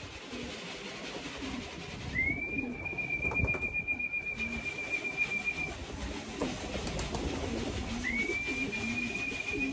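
Racing pigeons cooing over and over, while two long steady whistles, each sliding up into a held note for about three and a half seconds, sound about two seconds in and again near the end: a fancier's call whistle to bring the young birds down into the loft.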